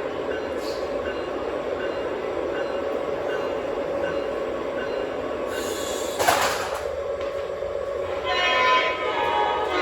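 O-gauge Lionchief Santa Fe model locomotives running on the track with a steady motor-and-wheel hum. A short burst of hiss comes about five and a half seconds in, and near the end the locomotive's onboard sound system blows its horn.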